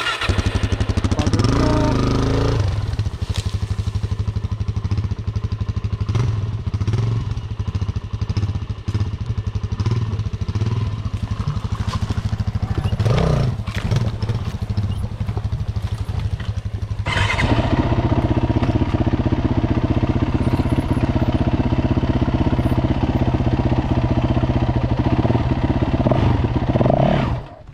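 Dirt bike engine running at low trail speed, a fast steady putter with a few rising revs in the first couple of seconds. About two-thirds of the way in the engine note gets fuller and louder as the throttle opens. The sound comes in sharply at the start and cuts off sharply near the end.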